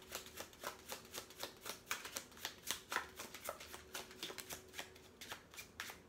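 A deck of oracle cards being shuffled overhand by hand: a steady run of soft flicks, about three or four a second, thinning out near the end.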